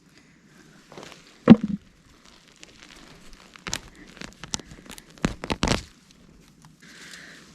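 Potato plants and garden soil being dug up and pulled by hand: scattered crunches, rustles and thuds, the loudest about a second and a half in and a cluster of them near five and a half seconds.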